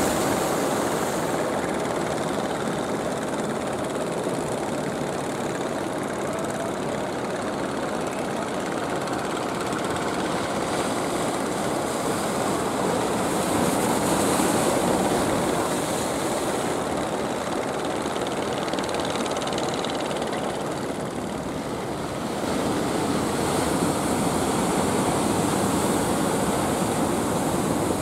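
Fishing boat's engine running steadily as the boat crosses choppy water, mixed with the wash of waves.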